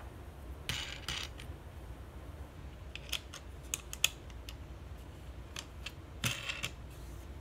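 Metal wing nuts being fitted and spun onto the bolts of a wooden picture-frame clamping jig: light clicks and short scrapes of metal and wood. There are scraping bursts about a second in and again near the end, and a handful of sharp clicks in the middle.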